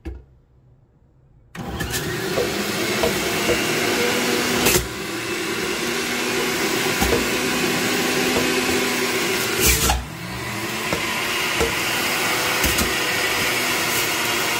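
Electric centrifugal juicer switched on about a second and a half in: its motor runs with a loud steady whir as green apple pieces are pushed down the feed chute and shredded. Two brief louder knocks, about five seconds apart, break the steady noise.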